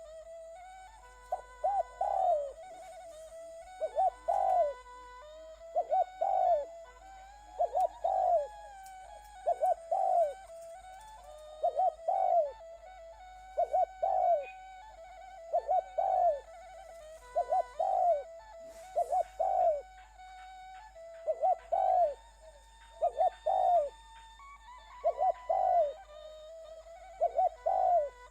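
Dove-like cooing calls repeating evenly, about one every two seconds, over steady held tones like a background music track.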